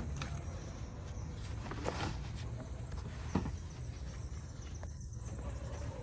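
Steady low rumble with a few faint knocks, about two seconds and three and a half seconds in.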